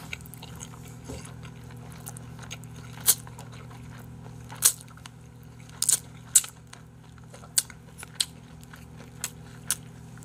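Close-miked chewing of a big wrapped mouthful of boiled pork (bossam) and buckwheat noodles: wet smacks and crunches, about a dozen sharp ones spaced irregularly from about three seconds in, over a steady low hum.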